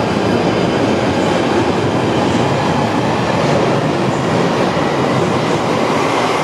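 London Underground Northern Line tube train (1995 stock) running out of the platform: a loud, steady noise of wheels on rail, echoing in the deep-level station.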